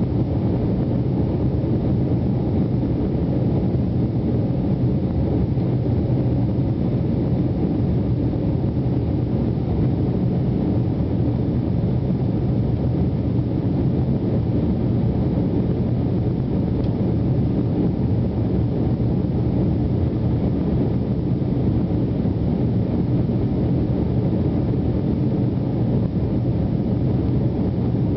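Jet airliner cabin noise during the climb after takeoff: the engines and rushing air make a steady drone with a low hum that holds at an even level throughout.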